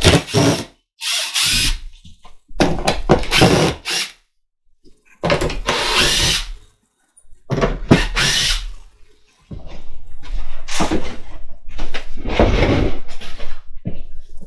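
Cordless drill-driver backing screws out of an MDF sheet on a CNC bed, running in short bursts of about a second each, one screw after another, with a longer stretch near the end.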